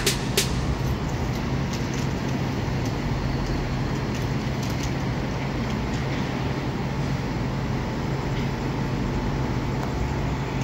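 Steady city traffic noise rising from the streets below, with a constant low hum underneath.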